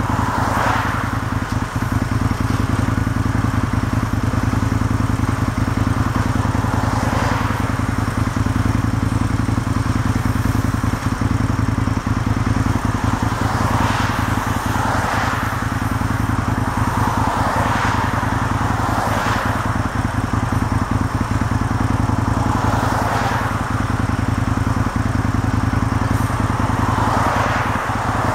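John Deere 225D excavator's diesel engine running steadily at a low drone, with swells of rasping noise that rise and fade every few seconds.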